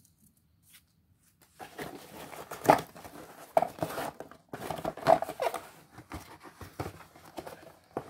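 A cardboard box being torn and pulled open by hand: irregular ripping and rustling of the packaging, starting after about a second and a half of quiet, with the sharpest rip about a second later.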